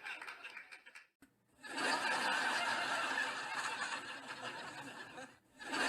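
People snickering and chuckling, broken twice by brief drop-outs where the sound cuts away.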